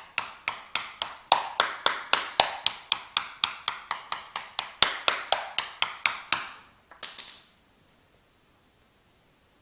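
Rapid, even tapping on a hard, ringing surface, about four taps a second, dying away after about six seconds. A short, higher-pitched ring follows.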